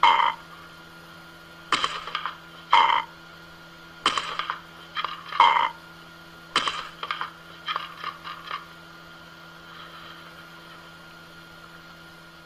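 A parrot and a cat squabbling at close quarters: a run of short, harsh squawk- and hiss-like bursts that stop about two-thirds of the way through.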